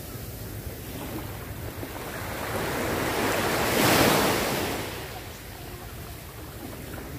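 Small sea waves breaking and washing up on the shore, one wave swelling and breaking close by about four seconds in, with wind buffeting the microphone.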